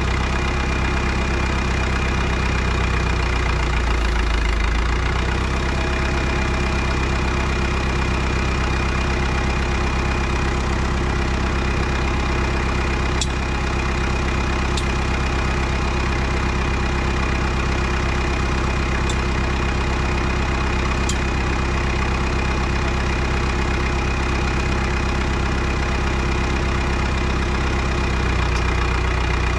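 Tractor engine running steadily under load, driving a Hakkipilke 1x37 firewood processor. There is a brief change in the low engine note about four seconds in, and four sharp clicks near the middle.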